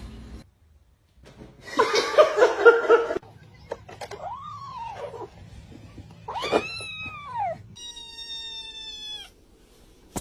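Domestic cat meowing and yowling in several separate cries, including two drawn-out meows that rise and then fall in pitch.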